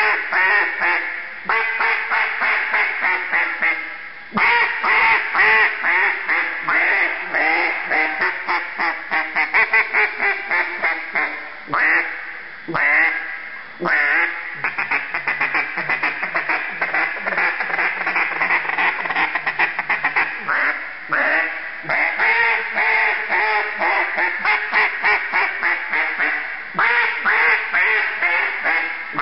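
Hedge-wood Committed Custom Calls ThrowBack duck call blown in mallard quacking sequences: strings of loud, raspy quacks, some in fast runs, with short breaks about 4, 12, 14 and 21 seconds in.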